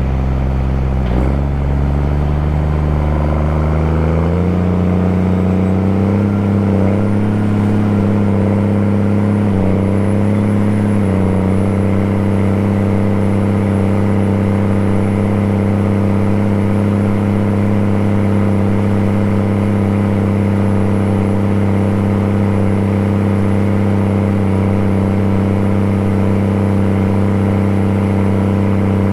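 Farm tractor engine pulling a field cultivator: it climbs in pitch over the first few seconds as it speeds up, then runs at a steady pitch under load.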